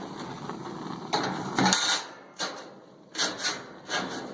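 New steel heat plates being handled and set into a gas grill: a few scraping clatters and knocks of sheet metal on the grill's metal.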